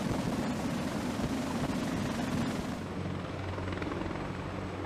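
Helicopter in flight: steady rotor and turbine noise. About three seconds in, the hiss thins and a low hum comes forward.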